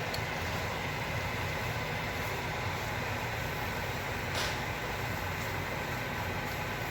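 Steady low hum with an even hiss over it, and a single light tap about four and a half seconds in.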